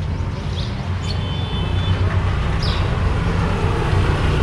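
Steady street traffic noise, a low rumble of engines, with a few short faint high sounds and a brief thin high tone about a second in.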